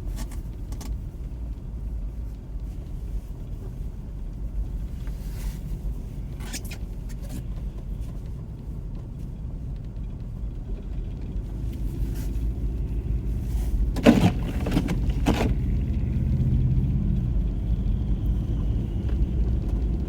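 A car's engine and road rumble heard from inside the car, steady at first, then louder from about twelve seconds in as the engine works harder. A couple of sharp knocks come around the fourteen- and fifteen-second marks.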